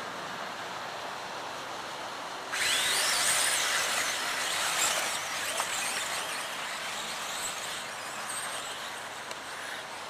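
Electric 4WD RC off-road buggies racing: high motor and gear whines that rise and fall in pitch as they accelerate and pass, starting abruptly about two and a half seconds in and fading near the end, over a steady hiss.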